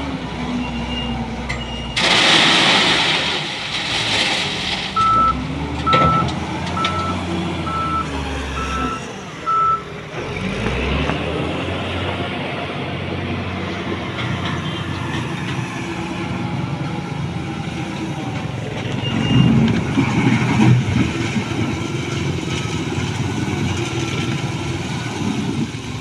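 Wheel loader's diesel engine running under load as it tips a bucket of crushed ballast stone into a railway hopper wagon, the stone pouring in with a loud rush a couple of seconds in. Its reversing alarm then beeps about every two-thirds of a second for several seconds as it backs away, and later there is a rough clatter of stone as it works the pile.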